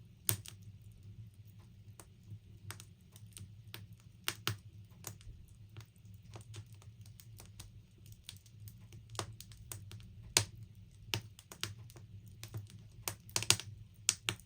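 Logs burning in a log burner, crackling: irregular sharp pops and snaps, a few of them much louder, over a low steady hum.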